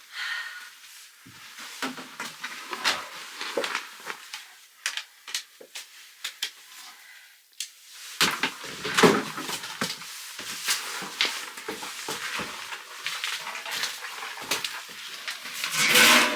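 Irregular clicks and knocks, sparse at first and coming thick and fast from about eight seconds in.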